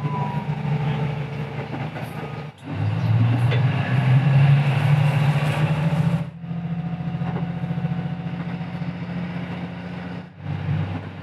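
KiHa 75 diesel railcar running on the line, heard from just behind the driver's cab: a steady engine hum over rail and running noise. The sound drops out briefly twice where clips are joined.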